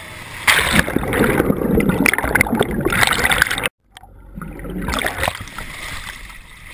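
Wake water rushing and splashing hard over an action camera's microphone as a wake surfer goes into the water, starting suddenly about half a second in. It cuts out abruptly just before four seconds in as the camera goes underwater, then comes back quieter and muffled through churning foam.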